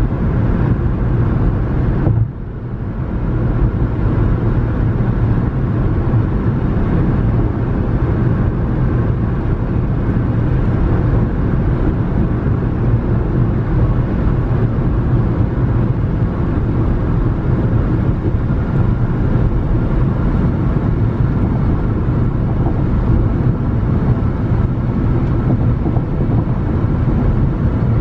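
A car being driven: steady engine and tyre road noise, dipping briefly about two seconds in.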